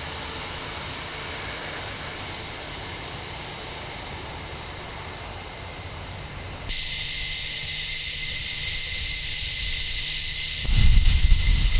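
Outdoor ambience: a steady high hiss that shifts abruptly about two-thirds of the way through. Near the end, a louder low rumble of wind buffets the microphone.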